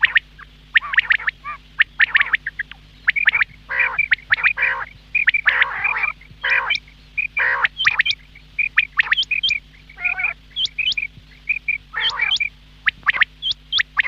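Quail calling over and over: quick, sharp notes, some sweeping up high, mixed with rougher raspy calls.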